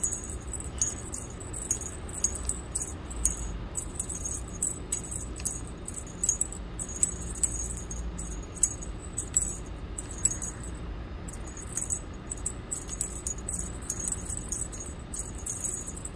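A cat teaser wand toy jingling in quick, irregular shakes as it is waved about and batted, over a steady low hum.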